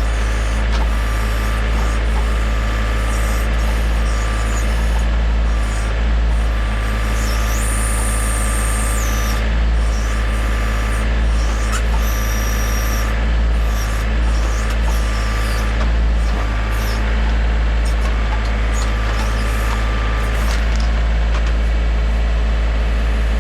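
John Deere 3025E compact tractor's diesel engine running steadily under load as it powers a 340B backhoe digging a trench, with brief high hydraulic whines about a third of the way in and again about halfway.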